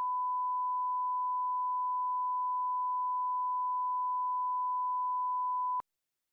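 Broadcast line-up test tone played with colour bars: one steady, unwavering beep that cuts off abruptly near the end.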